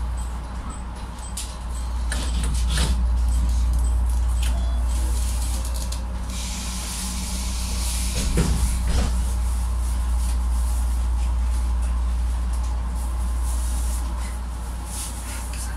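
A train standing at a station platform with a steady low hum from its equipment, scattered light clicks, and a hiss of air starting about six seconds in, with a couple of knocks around eight to nine seconds in.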